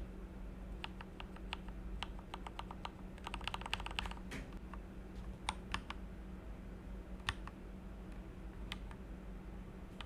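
Typing on a budget barebone mechanical keyboard built from a kit, heard in its stock state: a quick run of keystrokes in the first four seconds, then slower, scattered single key presses, over a faint steady hum.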